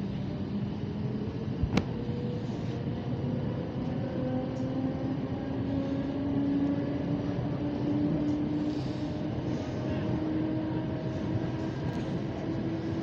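Suburban electric multiple-unit train (elektrichka) running, heard from inside the carriage: steady rumbling running noise with a motor whine that rises slowly in pitch as the train picks up speed. One sharp click a little under two seconds in.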